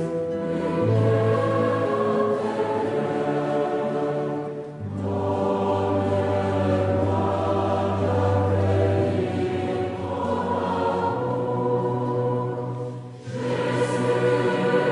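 Background choral music: a choir singing slow, long-held chords, with short breaks between phrases about five seconds in and near the end.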